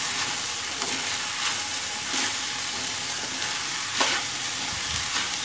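Sweet corn kernels and chopped scallions sizzling in oil in a steel wok, stirred with a spatula. A few short scrapes of the spatula against the pan sound over the steady sizzle, the clearest about four seconds in.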